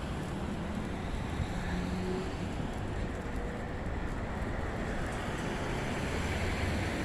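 Steady engine and road noise from a vehicle driving along at an even pace.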